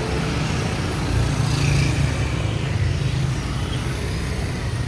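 Busy street traffic of motor scooters and cars running past, swelling louder in the middle as a vehicle passes close.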